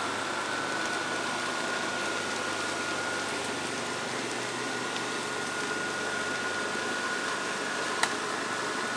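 Electric blower fan of an inflatable Halloween decoration running steadily: a constant rushing hum with a thin, steady high whine. A single sharp click about eight seconds in.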